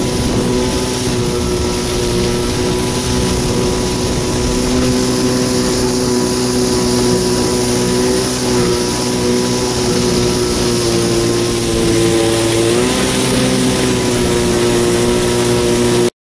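Kawasaki 650SX stand-up jet ski's two-stroke twin engine running steadily at speed over a hiss of wind and water. About three-quarters of the way through, the engine note dips briefly and climbs back. The sound cuts off abruptly at the end.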